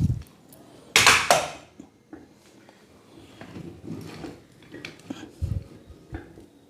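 Metal C-stand parts being handled during assembly: a loud metallic clatter about a second in, then lighter knocks and clicks, with a couple of dull thumps.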